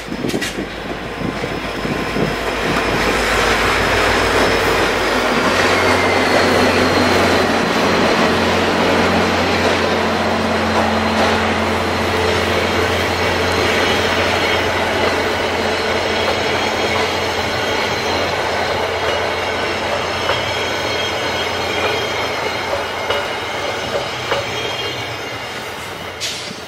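VIA Rail passenger train passing close by: the diesel locomotive's low engine drone goes by in the first few seconds, then the coaches' wheels rumble over the rails with a thin, high wheel squeal. The noise fades near the end as the train pulls away.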